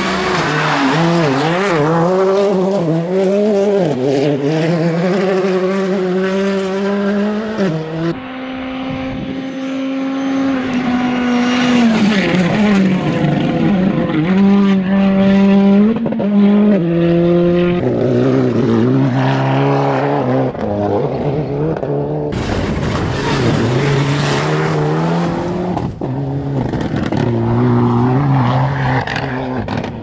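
Rally cars at full throttle passing one after another, engines revving high with the pitch climbing and then dropping sharply at each gear change.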